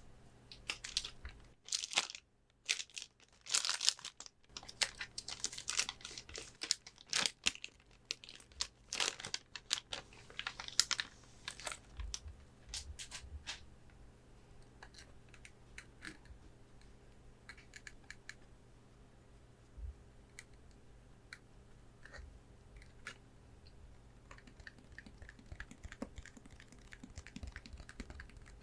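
Packaging being handled and opened close to the microphone: crinkling and tearing for roughly the first eleven seconds, then quieter scattered taps and clicks.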